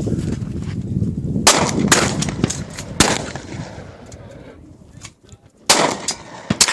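.22 rifle being fired: sharp cracks, the clearest about a second and a half in and again near the end, with smaller clicks between.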